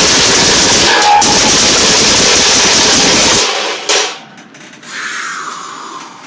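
Loud, continuous explosion roar that cuts off sharply about three and a half seconds in, followed by a click and a falling whoosh.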